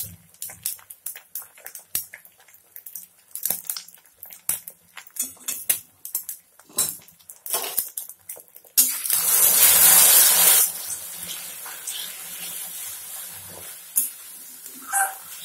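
Eggs being beaten in a bowl, the utensil clicking rapidly against the bowl. About nine seconds in, the beaten eggs go into hot oil in a kadai with a sudden loud sizzle that settles after about two seconds into a steady, quieter frying hiss.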